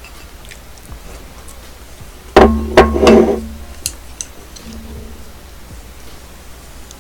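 A ceramic bowl set down hard on the table close to the microphone: a loud knock and short clatter about two and a half seconds in, followed by a few light clicks of chopsticks and dishes.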